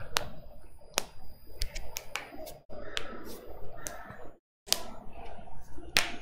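Irregular sharp clicks and taps, about a dozen, over a faint background hiss, with a brief dropout to silence about four and a half seconds in.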